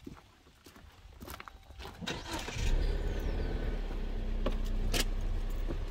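A few light clicks and knocks, then a Jeep's engine cranks and catches about two and a half seconds in and settles into a steady low idle.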